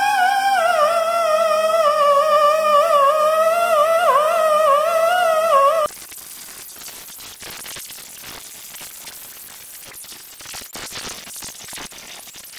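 Music with a single wavering lead tone that drifts downward, cutting off about six seconds in. After that, quieter hissing and scratching of an air-powered die grinder polishing the aluminium combustion chambers of a VW 1.8T 20-valve cylinder head.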